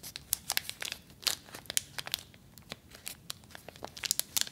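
Crinkly wrapper of an individually wrapped tampon crackling as it is turned and pinched between the fingertips, in many quick, irregular crackles.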